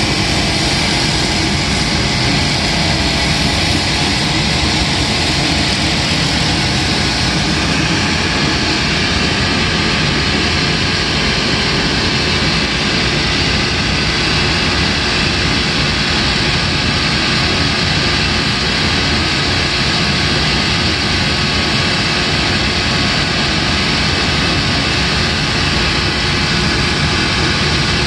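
A machine running continuously with a loud, steady whirring rush that does not change.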